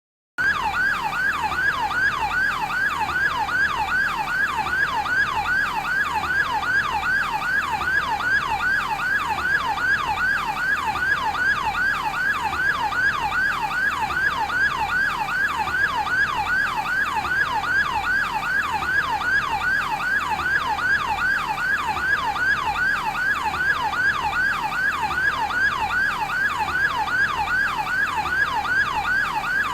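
Electronic yelp siren of a fire department advanced life support ambulance, sweeping rapidly up and down in pitch about three times a second, steady and unbroken.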